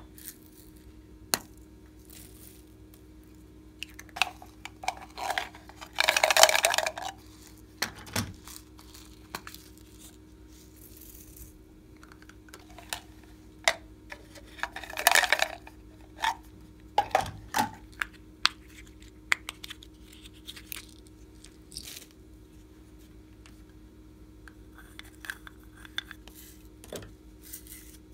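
Small plastic slime and glitter containers being handled: scattered clicks and taps of plastic lids and pots, with two longer scratchy bursts, about six and fifteen seconds in.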